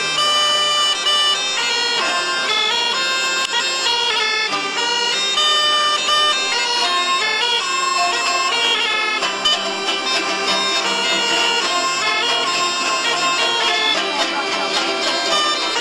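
Instrumental folk background music: a wind instrument plays a quick stepwise melody over a held low note.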